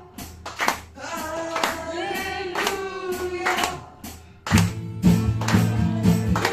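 Live one-man-band music: a man singing over acoustic guitar, with sharp percussion hits keeping the beat from a foot-played drum kit. After a brief dip about four and a half seconds in, a fuller, heavier low beat comes in and the music gets louder.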